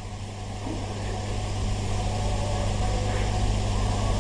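A steady low hum with background hiss, growing gradually louder during a pause in the recitation.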